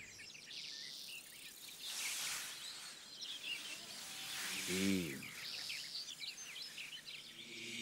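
Garden nature ambience: scattered bird chirps and insect trilling, with two soft swells of rustling noise and one brief low pitched sound about five seconds in.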